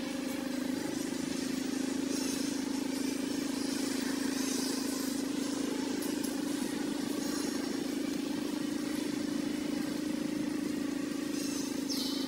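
A motor running steadily, its low drone holding one pitch without change. Near the end a short, high squeak glides downward in pitch.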